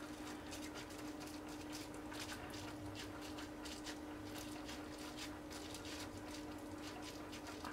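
Rubber-gloved hands pressing and rubbing bubble wrap down onto the surface of freshly poured soap: faint, irregular crinkling and ticking of the plastic, over a steady hum.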